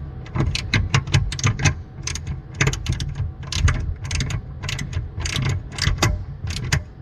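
Ratchet wrench clicking in quick, uneven runs of sharp clicks as a bolt on a pinsetter's pulley assembly is turned.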